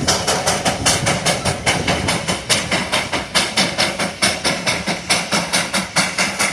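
Narrow-gauge steam locomotive of the Darjeeling toy train chuffing in a quick, steady rhythm of about five exhaust beats a second.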